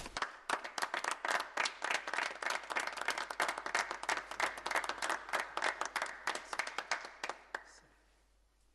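A small group of people applauding by hand, steady dense clapping that thins out and stops near the end.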